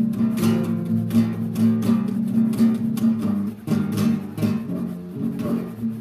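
Acoustic guitar music: chords strummed in a steady rhythm.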